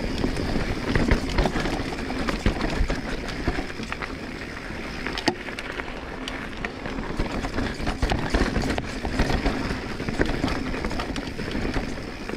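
A 2022 Transition Sentinel full-suspension mountain bike ridden down a rough trail: tyres rolling over dirt and rock, with frequent sharp clicks and rattles from the bike.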